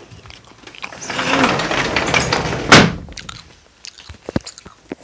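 Handling noise from a phone camera being picked up and moved about: rustling for about two and a half seconds with one sharp knock in the middle, then a few light clicks.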